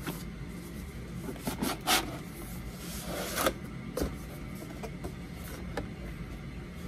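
A cardboard box and its paper insert being handled and opened: rustling and scraping, with a few short knocks spread through.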